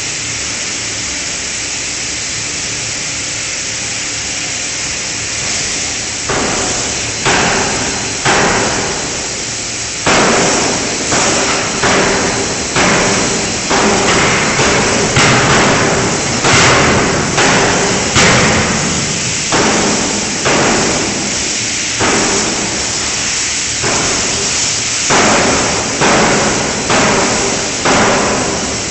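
5-ton electro-hydraulic closed-die forging hammer striking a connecting-rod forging in a long run of sharp blows, each with a short ringing decay. The first few come about a second apart, starting about six seconds in, and then the blows settle to a steady pace of a little more than one a second. Before the blows start there is a steady hiss.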